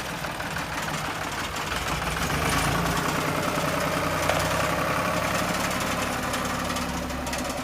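JCB backhoe loader's diesel engine running steadily, getting somewhat louder for a few seconds in the middle.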